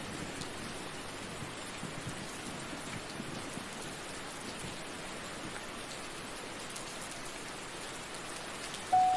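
Steady rain falling, an even hiss without pauses. A single sustained musical note comes in right at the end.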